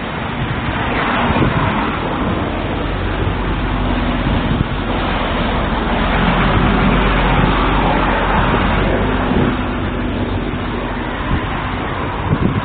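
Road traffic noise: a vehicle's low rumble and tyre noise swell to a peak midway and fade again.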